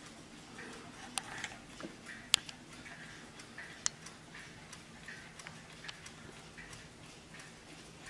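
Warmink mantel clock ticking steadily, about two ticks a second. Three sharper clicks come in the first four seconds, the loudest a little past two seconds in.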